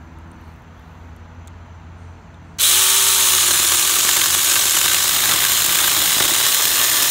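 Saker 4-inch cordless 20-volt mini electric chainsaw switched on suddenly about two and a half seconds in and running steadily as it cuts through a branch about 2.5 inches thick.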